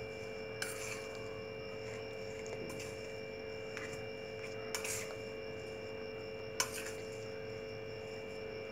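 A steel spoon clinks against a steel bowl a few times, sharp short knocks about half a second, five and six and a half seconds in, as mashed potato and spices are stirred. A steady hum runs underneath.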